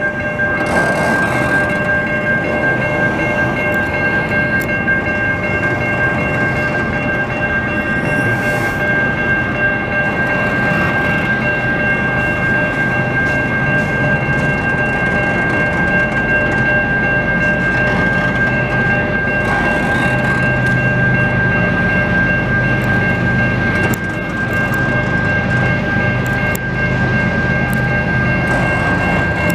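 Double-stack intermodal freight cars rolling past on the rails in a steady rumble, over several high ringing tones held unchanged throughout. About two-thirds of the way through, a deeper low drone grows louder.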